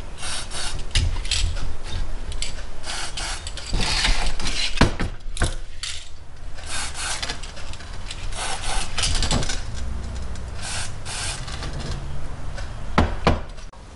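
Irregular scraping and rubbing, with a few sharp metallic clicks, from hand work on an electric motor's end housing, whose bearing is stuck on the shaft.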